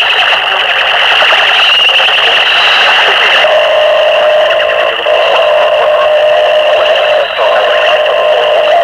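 Harsh, distorted electronic noise from a homemade-electronics noise cassette recording: a dense, loud wall of midrange noise with a steady high whining tone on top. A second, lower steady tone comes in about a third of the way through and breaks off briefly twice.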